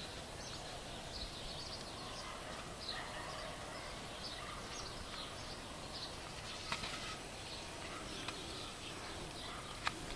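Quiet outdoor ambience with distant birds chirping: many short, faint high chirps scattered throughout, and two brief soft clicks in the second half.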